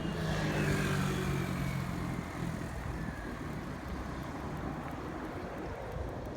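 A motor vehicle passes close by. Its engine hum is loudest in the first couple of seconds, with its pitch falling as it goes past, then it fades into steady traffic background noise.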